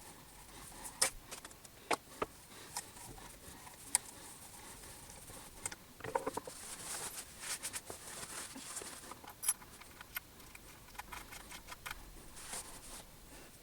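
Scattered light clicks, taps and rustling from small objects being handled, with a few sharper knocks about a second and four seconds in.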